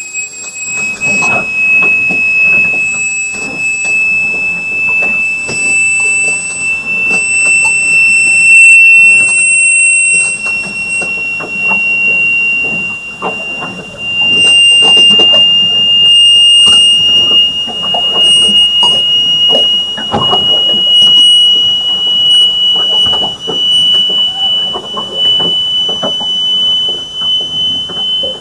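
A loud, steady high-pitched whine, one unbroken tone with fainter overtones, creeping slowly up in pitch, over irregular crackling and knocking. It is an unidentified noise, which the boat's owners wonder might be a sonic weapon.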